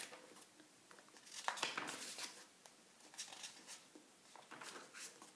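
Paper pages of a large bound book being turned by hand: a few soft rustles and swishes of paper.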